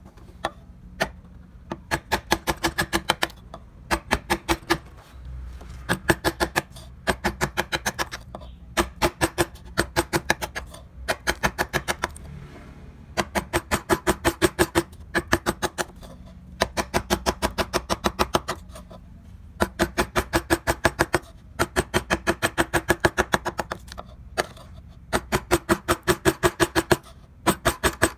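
Flat wood-carving chisel being driven into wood with rapid light taps, in quick bursts of about seven or eight strikes lasting about a second, with short pauses between bursts; each tap rings faintly.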